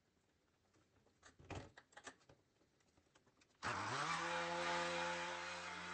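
A few clicks and knocks, then about three and a half seconds in a vehicle engine starts, its pitch rising briefly before it settles into a steady idle.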